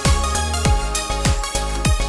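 Electronic background music with a deep, booming kick drum that drops in pitch on each hit, a little under two hits a second, over a steady bass line.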